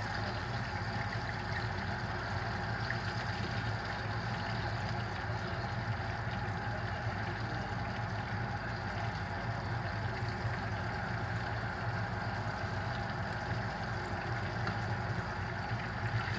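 Lobster tails frying in oil in a skillet: a steady sizzle over a constant low hum.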